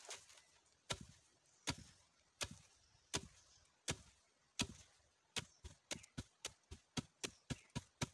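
Wooden pestle pounding sun-dried coffee beans in a deep wooden mortar, a dull knock with each strike. The strikes come about one every three-quarters of a second, then from about five seconds in quicker, about three a second. This is the hulling stage: the pounding cracks the crisp, dried skins off the beans.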